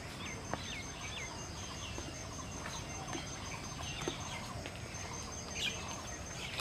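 Mixed birdsong at dawn: many birds chirping and calling in short notes, faint against a steady background hiss, with an evenly pulsing high note behind them.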